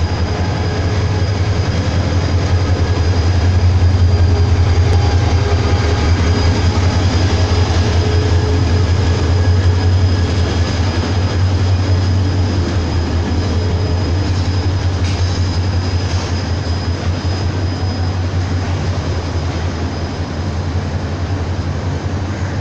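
Diesel locomotive's engine running with a deep steady hum as its train of passenger coaches rolls past along the platform, loudest about four seconds in and slowly easing off. A faint steady high whine sits above it.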